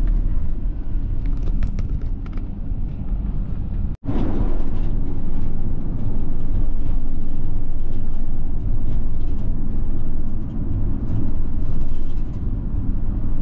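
Delivery van driving in traffic: a steady low rumble of engine and tyres. The sound cuts out for an instant about four seconds in.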